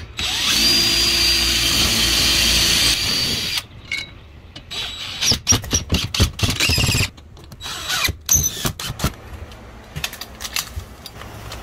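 DeWalt cordless drill running steadily into the top rail of a steel security-door frame for about three and a half seconds, then a string of short bursts and sharp clicks, with a few scattered clicks near the end.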